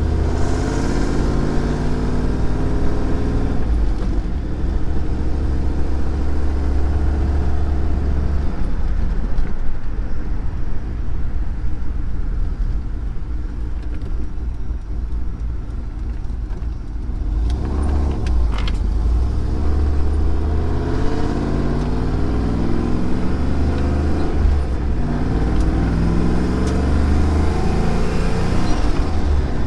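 A car's V8 engine under way, a strong low drone whose pitch climbs as it accelerates near the start and again in the last third, with a lull in the middle.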